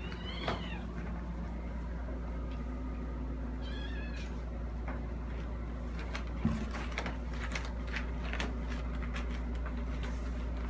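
A cat meowing twice, briefly, about half a second in and again about four seconds in, over a steady low hum. From about six seconds on there are scattered rustles and taps from packing paper and a cardboard box.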